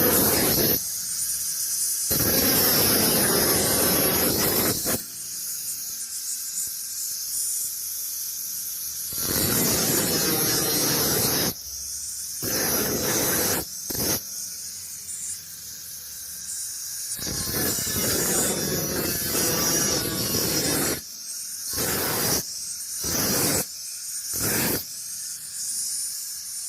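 Metalworking on a rusted Vespa scooter's steel body: a harsh, noisy sound that comes in repeated bursts of a second to a few seconds with short breaks between, over a steady high-pitched whine.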